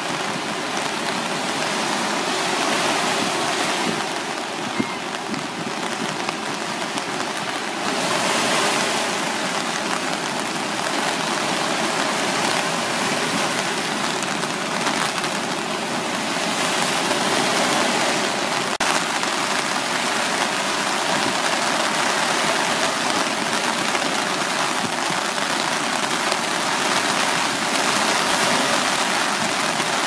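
Rough sea surf stirred up ahead of a typhoon: a steady rushing of breaking waves and foam washing up the beach.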